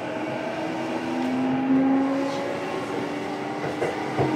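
Running sound heard inside the motor car of a JR East E233-series electric train (MoHa E233-7406). Steady rolling noise carries the traction motors' whine at several pitches that slowly rise. A few sharp clicks come near the end.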